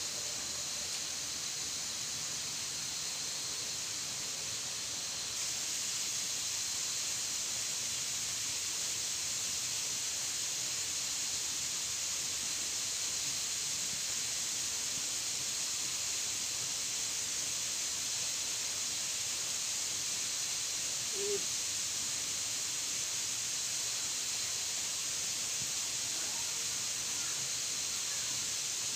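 Steady high-pitched hiss of outdoor ambience, with one brief low hoot-like call about two-thirds of the way through.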